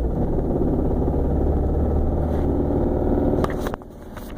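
Engine running with a serious rod knock, which the owner puts down to either a failed oil pump or a failed oil pickup tube: the pan is full but oil pressure reads nearly zero. The running sound drops away sharply near the end, followed by a few sharp clicks.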